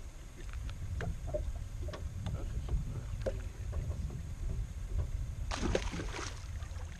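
A hooked bass splashing and thrashing at the water's surface beside a boat, loudest about five and a half seconds in. Under it there is a steady low rumble and scattered small clicks and knocks.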